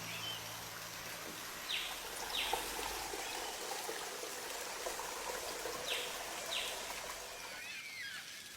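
Running creek water, a steady wash, with birds calling: two pairs of short descending calls, a few seconds apart, and a few light chirps near the end.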